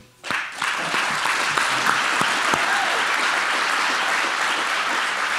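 Audience applauding: dense clapping that starts a moment in and holds steady.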